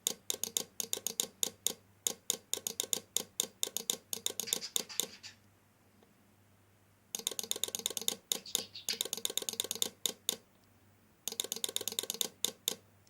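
Rapid rhythmic clicking from a melodic car horn's switching unit cycling through its pattern, about seven clicks a second. The clicking stops about five seconds in, resumes about two seconds later, and runs once more near the end, over a faint steady hum.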